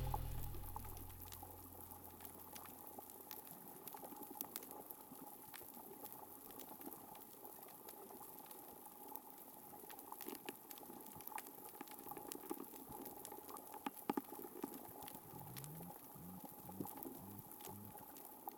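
Faint underwater reef ambience on a hydrophone: a steady crackle of countless sharp clicks from snapping (pistol) shrimp, with a handful of louder individual snaps. Music fades out in the first second or two, and a short run of low pulses comes in near the end.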